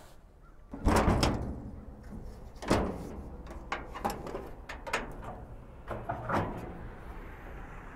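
Metal clunks from the 1952 Studebaker 2R5 pickup's body: a loud bang about a second in, a sharp knock near three seconds, then lighter knocks as the hood is unlatched at the grille and raised.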